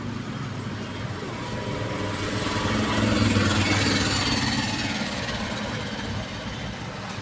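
A motor vehicle engine running with a steady rumble, growing a little louder about three seconds in and then easing off.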